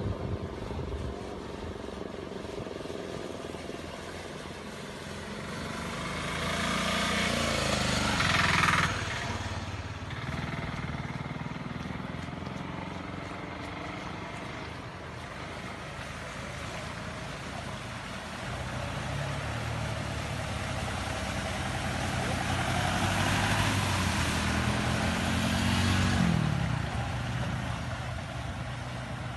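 Motor vehicle engines running, with two vehicles passing close by: each builds over a few seconds and drops away sharply, about nine seconds in and again about twenty-six seconds in.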